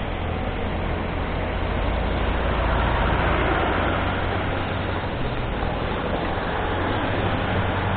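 Motorcycle running along a city road, its engine humming steadily under a broad rush of wind and road noise that swells briefly about three seconds in.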